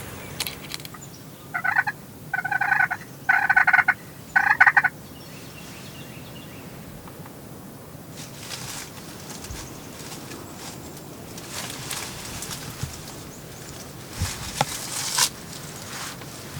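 Eastern wild turkey gobbling: a loud rattling gobble broken into four quick bursts about a second and a half in, over a steady wind-like background.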